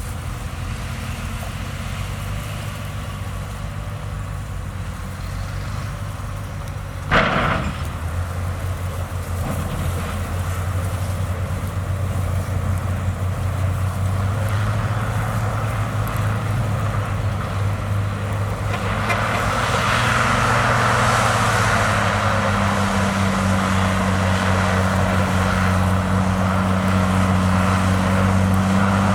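Heavy diesel engine of earthmoving machinery running steadily, with one sharp bang about seven seconds in. The engine grows louder and busier about two-thirds of the way through.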